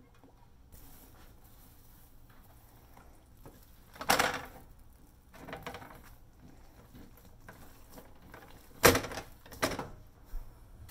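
Kitchen handling sounds from dough being worked in an aluminium baking pan and a cloth being laid over it. Mostly quiet, with one loud scraping rustle about four seconds in and two sharper knocks near the end.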